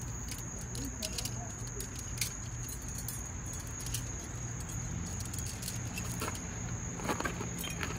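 Scattered small clicks and light rattles of scrap copper being handled, with a few sharper clicks near the end. Underneath runs a steady high-pitched whine and a low hum.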